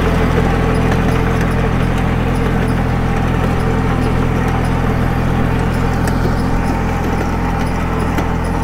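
Kubota B2440 compact tractor's diesel engine running steadily under load while it pulls a disc ridging implement through the soil.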